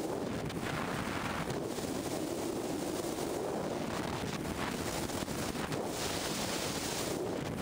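Steady wind rushing over a car-mounted camera's microphone at highway speed, mixed with road noise.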